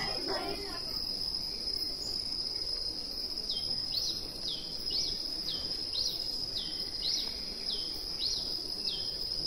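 A cricket's steady high trill, joined a few seconds in by a bird repeating a short call about twice a second.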